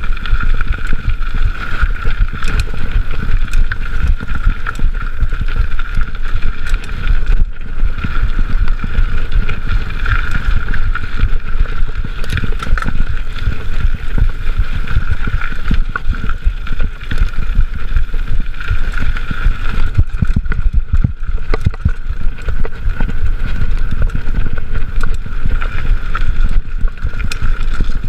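Mountain bike ridden over a dirt single track, heard from a chest-mounted GoPro: a steady rumble of tyres and frame over the rough trail, with a constant scatter of rattles and small knocks.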